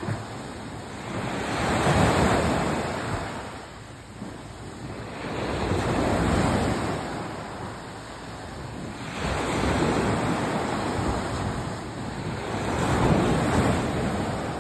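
Small sea waves breaking on a sandy beach and washing up the shore, four surges of hissing surf about four seconds apart.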